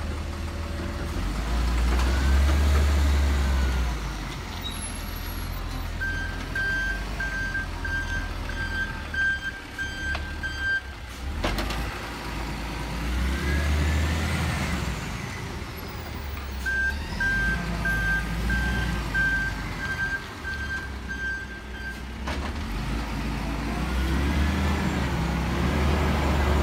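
Hino 500 side-loader garbage truck's diesel engine running and revving as it manoeuvres, swelling louder three times. Its reversing alarm beeps in two runs of about five seconds each, roughly two high beeps a second, with a brief sharp burst of noise as each run of beeps ends.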